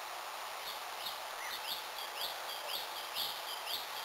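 A bird chirping over and over, short rising-and-falling chirps about two or three a second, starting just under a second in, over a steady background hiss.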